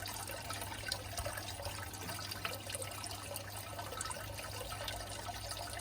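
Steady, faint trickling water with a low hum underneath, with a few small ticks.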